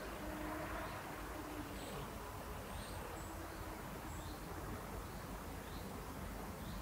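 Quiet outdoor ambience: a steady low background hiss with a faint, short high chirp repeating about once a second.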